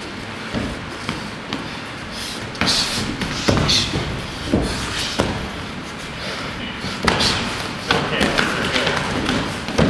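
Kickboxing blows landing on gloves and guards: a string of sharp thuds at irregular intervals, with voices calling out, echoing in a large sports hall.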